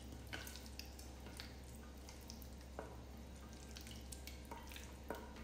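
Faint sounds of hands rubbing a wet ginger-garlic and chili marinade paste into chicken drumsticks in a glass dish, with a few light clicks.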